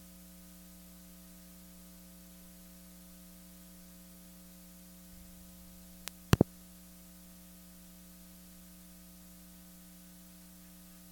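Steady electrical mains hum with several tones in it. About six seconds in it is broken by a faint click and then a loud, sharp double thump.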